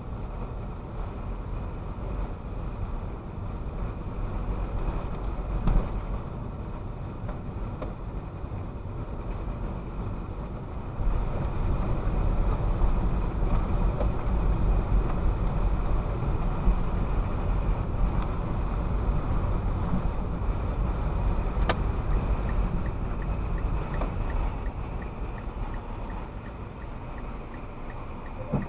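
Car driving with steady low tyre and road rumble that grows louder and rougher about eleven seconds in, broken by a few short sharp knocks, clearest about six seconds in and again near twenty-two seconds.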